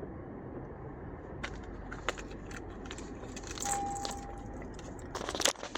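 2017 Acura TLX engine idling just after starting, with keys rattling and clicking over it, thickest near the end, and a short steady beep a little past the middle.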